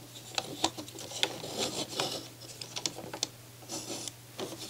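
Plastic parts of a NAD C540 CD player's disc-loader mechanism clicking and rubbing as it is moved by hand, with scattered light clicks at irregular intervals.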